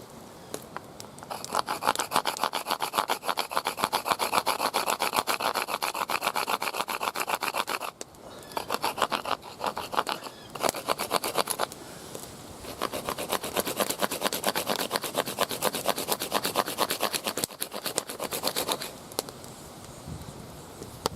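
A deer leg bone being sawn against a sandstone slab, a rapid back-and-forth rasping that cuts a groove around the bone. It comes in three long runs, with short pauses at about eight and twelve seconds in.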